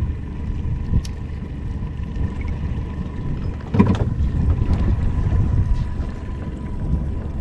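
Steady low rumble on the deck of a fishing boat out on the water, with a faint steady tone throughout, a small click about a second in and a knock about four seconds in.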